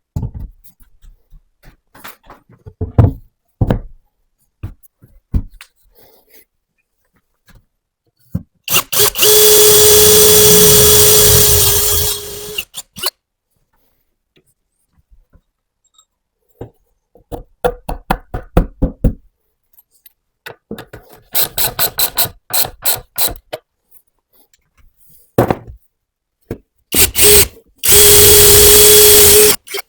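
Power drill running at a steady speed in two runs, the first about three and a half seconds long and the second about two seconds, with a couple of short spurts just before the second. Clicks and knocks of handling tools and material come in between.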